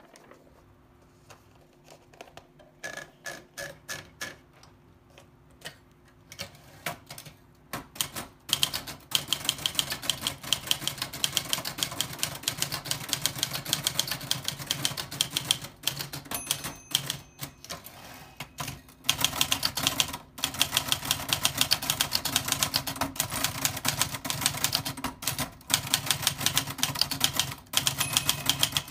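Old typewriter being typed on: a few scattered, soft keystrokes at first, then fast, steady typing from about a third of the way in, with a short break about two-thirds through.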